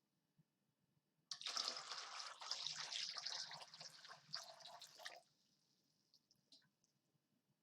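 Water sloshing and splashing for about four seconds, starting suddenly a little over a second in and stopping about five seconds in.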